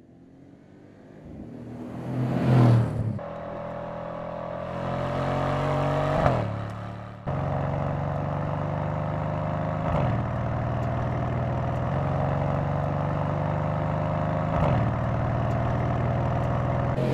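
Mercedes-AMG C 63 S Coupe's 4.0-litre twin-turbo V8 exhaust under acceleration. The note swells from faint to a loud burst about two and a half seconds in, then climbs slowly in pitch and drops sharply at each of three upshifts.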